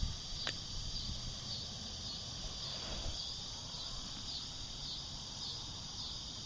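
Steady, high-pitched chorus of insects such as crickets, over a low rumble.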